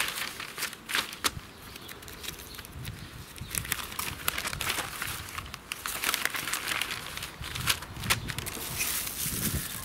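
Sheets of newspaper rustling and crinkling as they are unfolded, laid flat and smoothed by hand, with a few sharper crackles about a second in and near the end.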